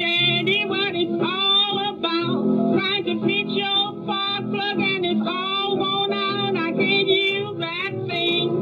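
1930s blues record: a woman singing with vibrato, accompanied by piano and string bass, played from a 78 rpm disc with its narrow, dull top end.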